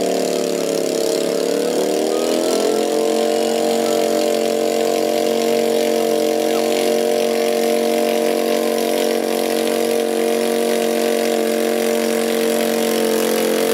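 Garden tractor engine running at high, steady revs under load while pulling a weight-transfer sled. The pitch sags a little in the first couple of seconds, then climbs back and holds level.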